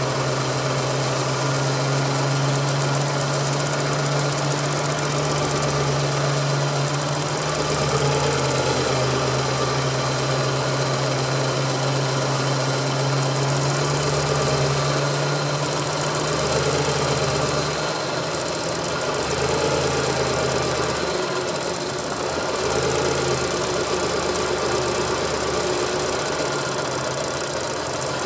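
Suzuki Cappuccino's turbocharged three-cylinder engine idling steadily.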